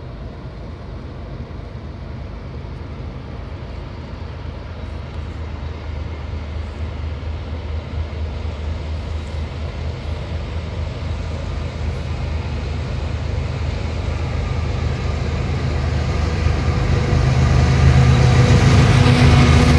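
BNSF diesel-electric locomotives at the head of a coal train approaching, their low engine rumble growing steadily louder as they near.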